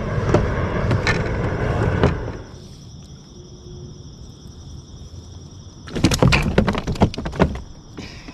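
Handling noise on a plastic kayak: rustling and knocking for the first two seconds, then a burst of rapid clattering knocks about six seconds in.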